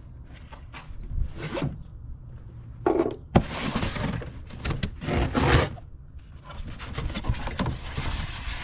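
Cardboard box being opened by hand: flaps and packaging rubbing and scraping against each other in several short bursts, with one sharp knock a little past three seconds in.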